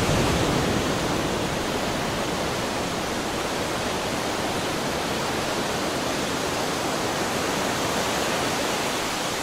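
Steady rushing wash of sea water, a surf sound effect.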